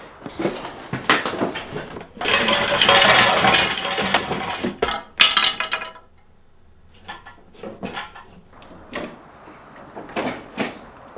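Clattering, clinking knocks of hard objects. A louder rattling, scraping stretch runs from about two seconds in, a sharp hit comes about five seconds in, and it quietens briefly before scattered knocks resume.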